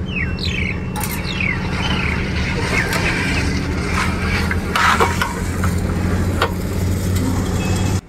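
Petrol station ambience while a motorcycle is refuelled: a steady low machine hum throughout, with short chirps from birds in the first part and a few light clicks.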